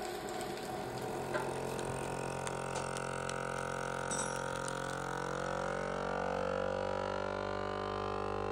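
Electric vacuum sealer from the MEAT! brand running its pump as it draws the air out of a bag of deer meat: a steady motor hum whose pitch shifts in the second half, with a few light clicks.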